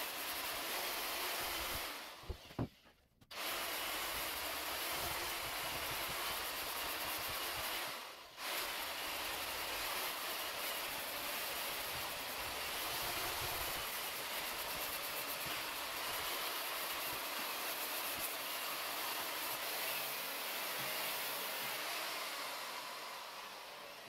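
Power tool spinning a wire brush against a wall, scouring off old whitewash and wallpaper, as a steady hissing scrape. It cuts out sharply twice in the first eight seconds and eases off near the end.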